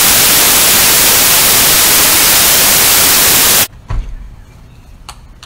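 Loud television-static white noise from a glitch intro effect, cutting off suddenly about three and a half seconds in. A quiet background with a single low thump follows.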